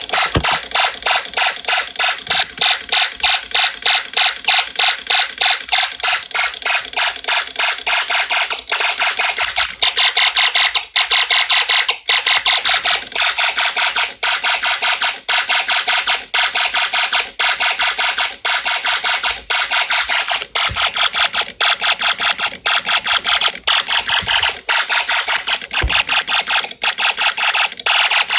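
Snap Circuits electronic fire alarm sounding: a harsh, rapidly pulsing electronic tone that cuts in suddenly and keeps going without a break.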